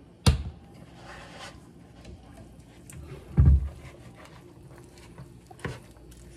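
Kitchen handling sounds: a sharp knock just after the start, a heavy thump about three and a half seconds in, and a smaller click near the end, as a plastic mayonnaise squeeze bottle is set down on the counter. Light scraping comes from a fork mixing flaked smoked mullet and cream cheese in a plastic bowl.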